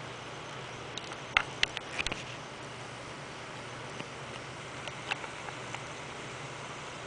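A dog licking a newborn puppy: a quick run of wet, clicking licks about a second in, and a few more around five seconds.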